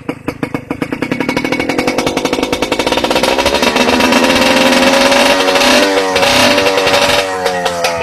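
125 cc motorcycle engine breathing through an aftermarket titanium exhaust pipe, idling with even pulses, then revved up steadily to a high held pitch for a few seconds before dropping back near the end.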